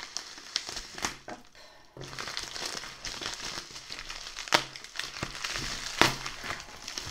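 Scissors snipping through a plastic bubble mailer, then the mailer's plastic crinkling steadily as it is pulled open by hand, with two sharp crackles, one about halfway through and another a second and a half later.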